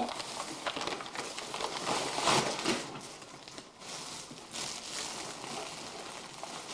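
Wrapping paper rustling and tearing in uneven bursts as presents are unwrapped, loudest about two seconds in.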